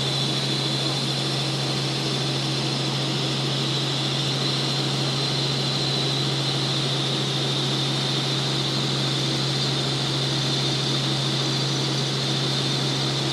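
Helicopter in flight heard from inside the cabin: a constant low drone with a steady high whine over a rushing hiss, unchanging throughout.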